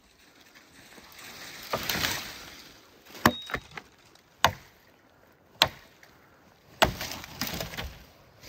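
Axe chopping branches of a felled tree: four sharp strikes a little over a second apart, with a rustle of dry brush just before them.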